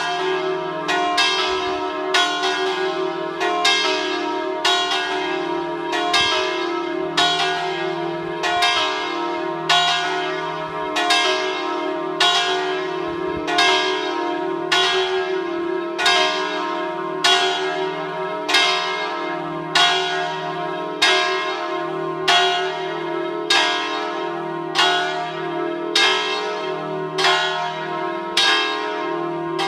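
The three largest bells of a five-bell peal tuned in E-flat, swung by electric motors with falling clappers ('a distesa'), ring continuously. Strokes come about one every second and a bit, overlapping over a steady hum of several bell tones.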